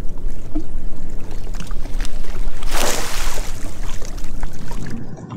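Idling watercraft engine with wind rumbling on the microphone, and a short rush of hiss around the middle.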